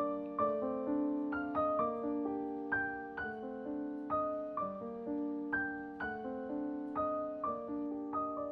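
Background piano music: a melody of single notes struck about twice a second, each ringing and fading.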